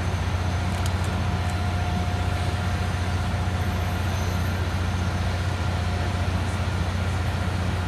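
Antonov An-178's twin turbofan engines running at low taxi thrust, a steady low rumble with a faint constant whine.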